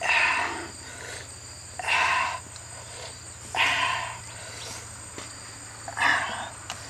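An animal calling four times, each call short, about half a second long, one every two seconds or so.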